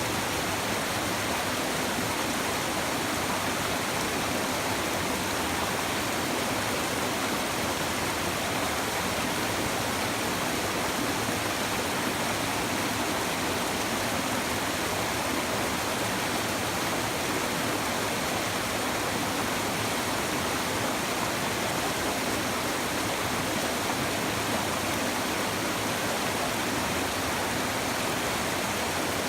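A river babbling and rushing over stones, a steady, even flow of water.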